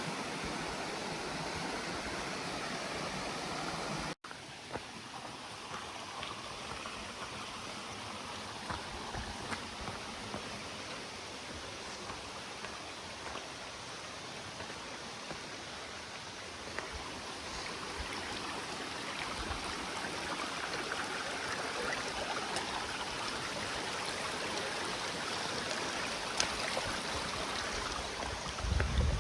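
Mountain stream flowing over rocks, a steady rush of water that briefly cuts out about four seconds in.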